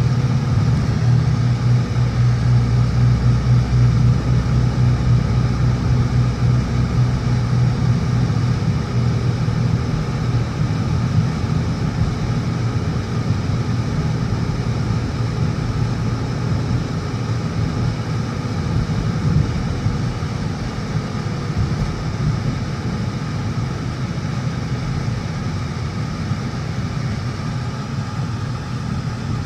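Steady engine and road drone of a car heard from inside the cabin while driving, with a strong low hum that eases somewhat after about ten seconds.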